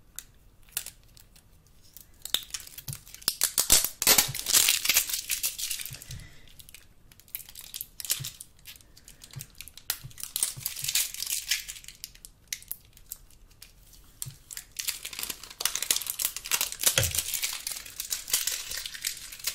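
Thin plastic wrapping crinkling and crackling in irregular bursts as it is handled and pulled away, with scattered small clicks. It starts about two seconds in.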